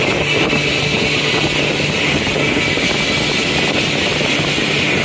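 Yamaha jet boat running steadily under way: a constant engine and jet-drive drone with a low steady hum and a steady rushing noise over it.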